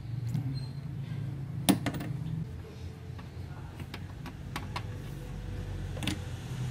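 Scattered light clicks and knocks of hands and a tool working at a car's clutch master cylinder. The sharpest comes about a second and a half in. A steady low hum runs underneath.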